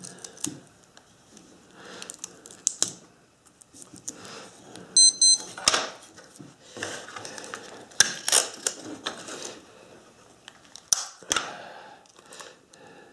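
Clear Scotch tape being pulled off the roll, torn and pressed onto the corners of a wooden block: scattered small clicks, crinkles and rubbing, with one brief high squeak about five seconds in.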